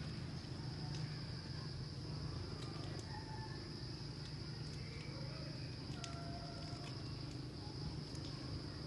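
Forest ambience: a steady high-pitched insect drone with a few short bird calls, over a low steady hum.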